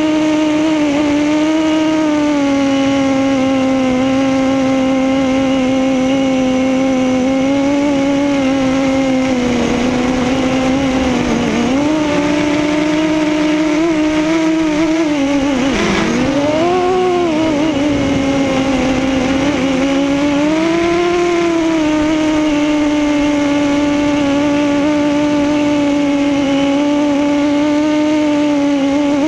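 FPV quadcopter's electric motors and propellers whining steadily in flight, heard from the onboard camera. The pitch dips and climbs with throttle changes, with a sharp drop and surge a little past halfway.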